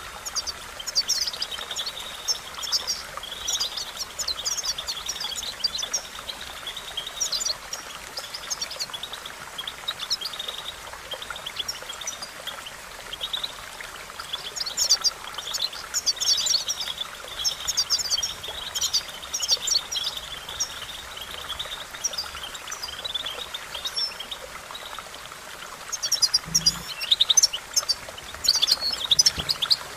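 European goldfinch singing: bursts of quick, high twittering chirps that come and go, thickest near the end.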